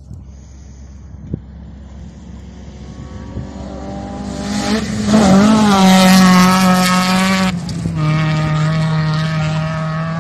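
Rally car passing at speed on a gravel stage: the engine note builds from faint to loud, with tyre and gravel noise at its loudest as the car goes by, then breaks briefly and carries on at a steady, slightly lower note that fades as it pulls away.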